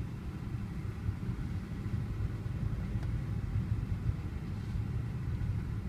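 Steady low rumble of a car on the move: engine and road noise as heard from inside the car.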